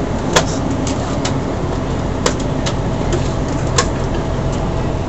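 Interior running noise of a diesel passenger train rolling along the track, a steady rumble with a low engine hum, broken by three sharp clicks spread through it.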